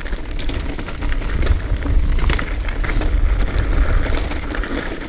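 Mountain bike ridden over a rough trail: constant clattering of tyres, chain and frame over the ground, with wind buffeting the microphone.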